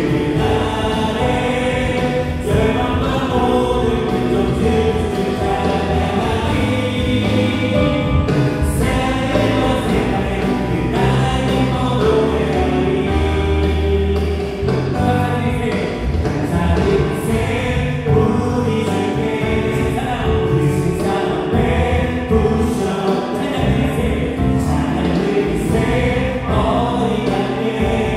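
Live worship band playing a contemporary praise song: electric guitar, bass guitar, drums and keyboards, with a group of voices singing.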